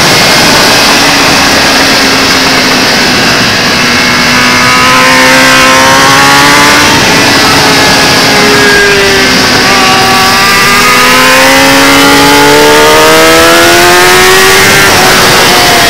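Kawasaki ZX-10R's inline-four engine at racing speed, its pitch falling and then climbing steadily as the rider drives out of a corner, over heavy wind rush.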